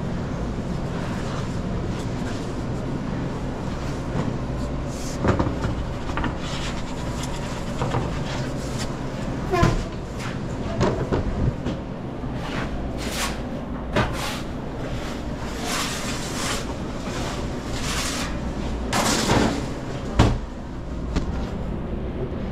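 Pizza-kitchen work sounds: scattered knocks, clatters and short scraping or rubbing sounds, most of them in the second half, over a steady low machinery hum.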